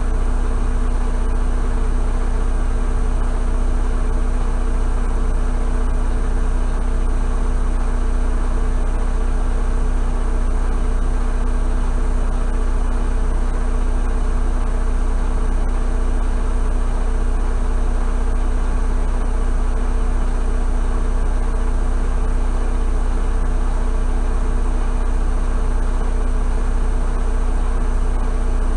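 Tractor-trailer's diesel engine idling steadily, heard from inside the cab, with a deep hum.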